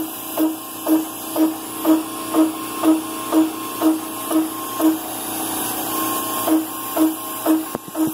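High-speed spindle of a CNC router peck-drilling aluminium with a single flute end mill: a pulsing cutting note about twice a second, one pulse per peck. The pulses break off for about a second and a half about five seconds in, then resume.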